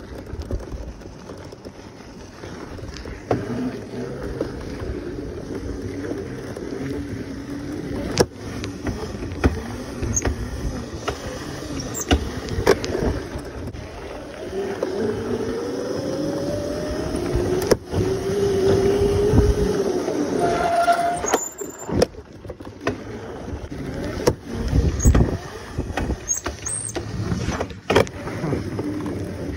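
Razor electric dirt bike being ridden on a dirt road: a steady running rumble, with the motor's whine rising in pitch as it speeds up about halfway through, then cutting off. Short knocks and rattles come as it goes over bumps.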